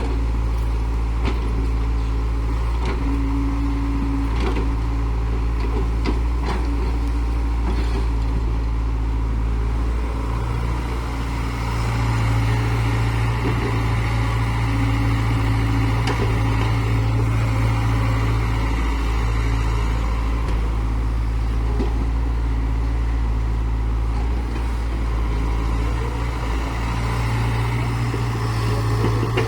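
Heavy diesel engine of earthmoving machinery running steadily, its low drone swelling for a few seconds at a time, with a series of sharp knocks over the first several seconds.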